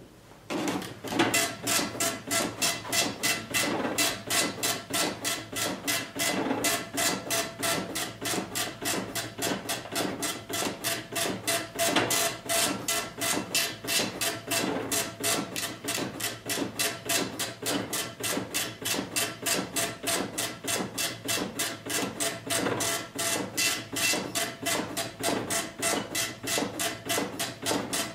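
Dot-matrix impact printer printing line after line on tractor-feed paper: the print head rasps across in a quick, even rhythm of passes. It starts about a second in.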